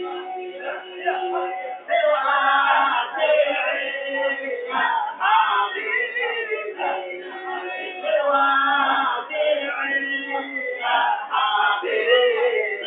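A group of men singing an Islamic nasyid together without instruments, with several notes held for a second or more.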